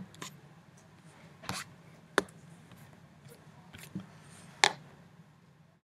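A few sharp clicks and knocks over faint room noise, as of someone handling the camera up close. The sound cuts off abruptly near the end as the recording stops.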